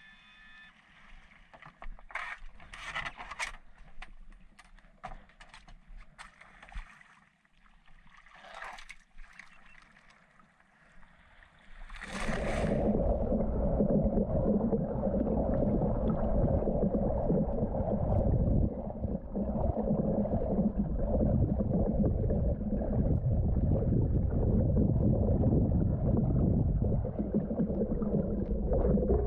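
A few splashes and knocks, then from about twelve seconds in a loud, muffled, steady underwater rush of water heard through a submerged mask-mounted action camera as a spearfisher swims.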